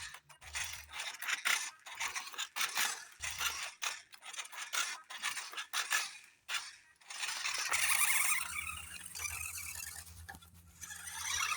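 A mini electric RC car driving, its tyres scraping and rattling over the ground in quick, irregular strokes. About eight seconds in the sound turns into a steadier, continuous scraping run with a low hum underneath.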